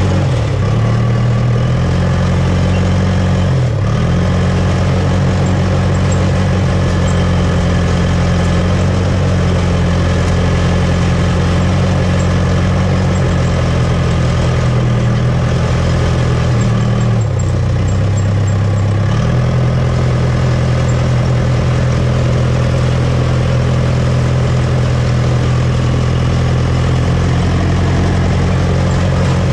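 Case 450C crawler dozer's diesel engine running steadily as the machine moves. Its note dips and recovers a few times, around the first second, near four seconds, and between about fifteen and nineteen seconds.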